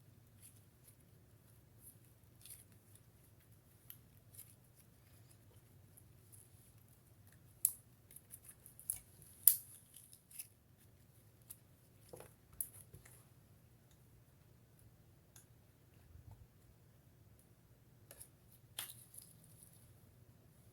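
Scattered sharp clicks and snaps from a cornstarch-and-lotion slime being handled, a cluster of louder ones in the middle and one more near the end.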